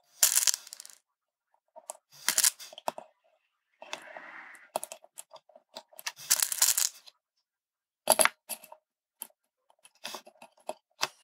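Loose plastic LEDs being handled and pushed into a circuit board's holes: irregular bursts of rustling and light clicking, with a few sharp clicks about eight seconds in.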